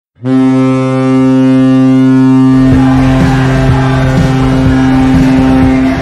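Kahlenberg KPH-130 hockey goal horn sounding one long, steady, low blast. About two and a half seconds in, the goal song starts under it with a driving beat.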